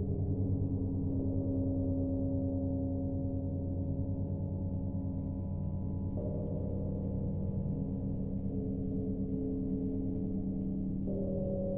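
Dark ambient underscore: a steady low drone under long, gong-like ringing tones, which step to new pitches about halfway through and again near the end.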